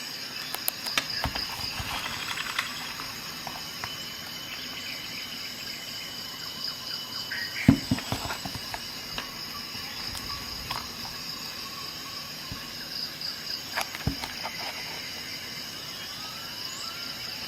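A few sharp metallic clicks of Swiss Army knife tools being opened and snapped shut, the loudest about halfway through. Behind them a steady, high-pitched pulsing chirr runs throughout.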